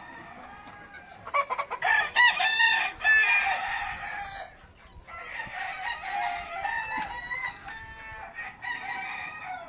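Caged gamecocks crowing. A loud crow starts about a second and a half in, and further, quieter crowing and clucking from other roosters follow through the second half.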